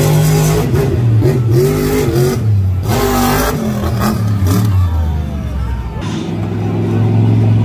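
Monster truck engine revving hard, its pitch climbing and falling again and again, easing off for a moment and then building up again near the end.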